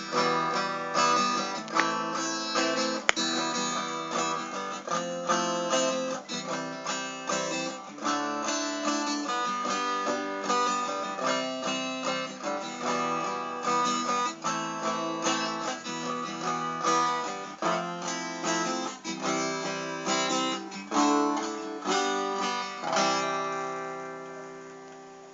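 Acoustic guitar strumming chords in the instrumental ending of a song, with no voice. The closing chord rings out and fades away near the end.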